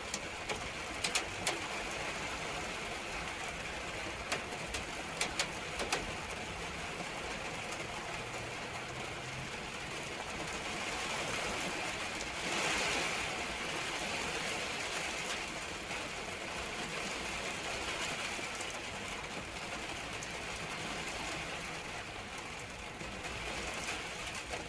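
Steady hiss of a rain shower, with a few sharp drip clicks in the first several seconds and a short louder gust of rain about halfway through.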